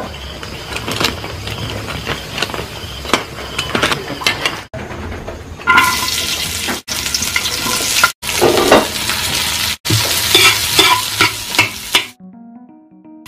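Food frying in a wok: oil sizzling around sliced garlic and onions while a spatula scrapes and clicks against the pan. The sound breaks off abruptly several times.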